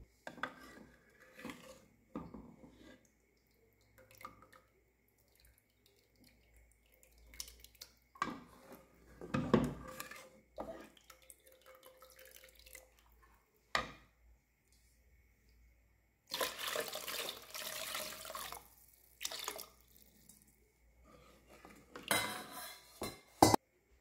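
A spatula and ladle knocking and scraping against a metal pressure cooker pot. About two thirds of the way through, soaked lentils and grains are poured in with their soaking water, a splashing pour of about three seconds. A sharp knock of the utensil on the pot comes near the end.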